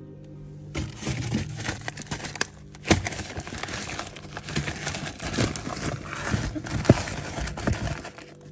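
Plastic-wrapped frozen meat packs crinkling and knocking as they are handled and shifted on a freezer's wire shelf: continuous rustling with many small clicks and a couple of sharper knocks, about three and seven seconds in.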